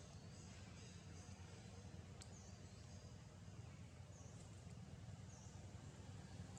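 Near silence: faint outdoor background noise with a low hum, a few faint short high chirps and a single click about two seconds in.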